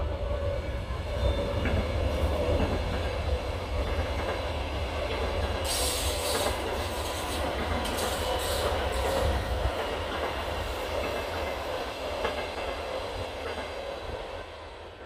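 Belgian SNCB M7 double-deck electric train passing close by: a heavy rumble of wheels on the rails with a rushing, clattering hiss from the coaches, loudest through the middle and dying away as the rear cab goes by near the end.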